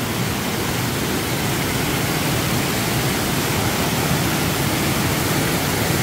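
Stream water pouring over a small concrete check dam and splashing into a rocky pool: a steady, loud rushing of falling water.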